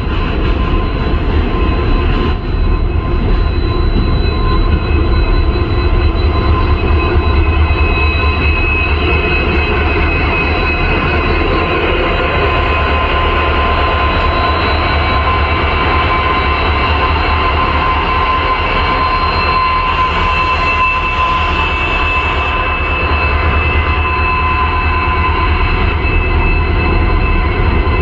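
Twin EMD WDG-4 diesel-electric locomotives running steadily, their 16-cylinder two-stroke engines giving a deep, even hum with steady high whining tones over it.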